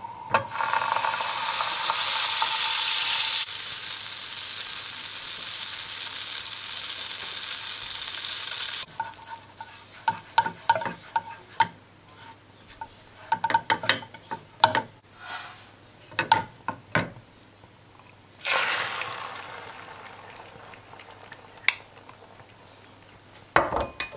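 Butter sizzling loudly in a hot nonstick frying pan, then a quieter stretch with short scrapes and taps of a silicone spatula spreading the melted butter. Near the end a fresh burst of sizzling fades away as the beaten eggs go into the hot butter.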